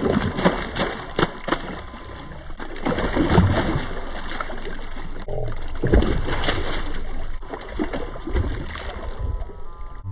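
Hooked peacock bass thrashing at the surface right beside the boat, throwing water in irregular splashes, heaviest about three seconds and again about six seconds in.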